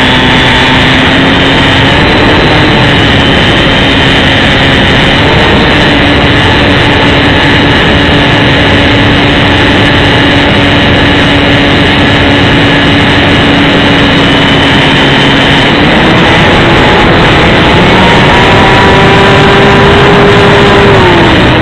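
Brushless electric motor and propeller of an XK DHC-2 Beaver RC plane heard from a camera mounted on it in flight: a steady whine under heavy wind rush on the microphone. The pitch climbs in steps over the last few seconds as the throttle opens, then drops just before the end.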